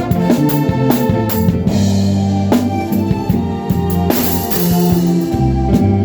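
Live band music with the drum kit to the fore: regular drum strokes over a moving bass line and held chords.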